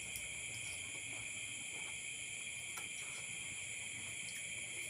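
Steady, unbroken chirring of night insects, high-pitched.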